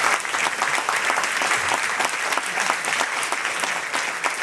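Theatre audience applauding steadily, many hands clapping at once: a standing ovation after a film screening.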